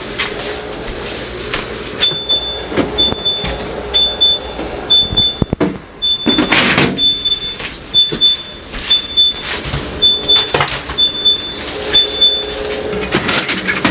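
Refrigerator door-open alarm beeping over and over, short high beeps about two a second, because the fridge door is held open while it is emptied. The beeping starts about two seconds in and stops near the end, over knocks and clatter.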